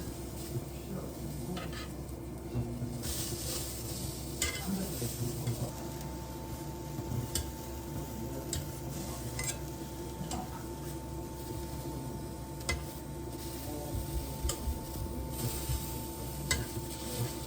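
Food sizzling in a frying pan while it is stirred, with scattered clicks and scrapes of a utensil against the pan.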